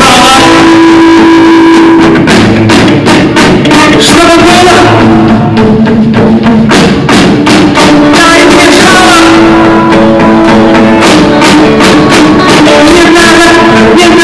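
Rock band playing live: electric guitars over a drum kit, very loud.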